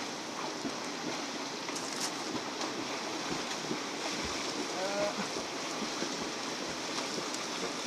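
Steady rushing of a fast, swollen river, with splashing from a swimmer in the water.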